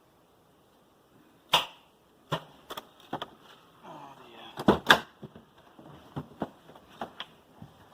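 Irregular sharp clicks and knocks from tools and parts being handled: a loud knock about one and a half seconds in, a double knock near the middle, then lighter ticks.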